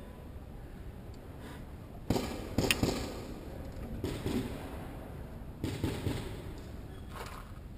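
Scattered paintball shots in the hall: a few sharp pops and knocks about two seconds in, again just after, and near six seconds, over the rustle of the player's clothing and gear.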